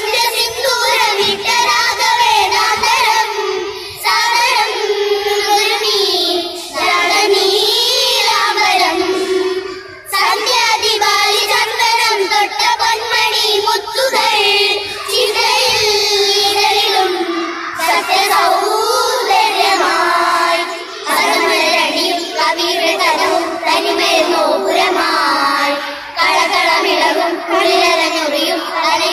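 A group of children singing a Malayalam patriotic song together, in phrases of a few seconds each with brief pauses for breath between them.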